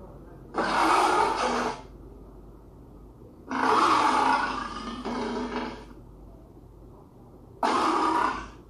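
Big cat roaring three times, a short roar about half a second in, a longer one about three and a half seconds in and a short one near the end, with a low hum between them.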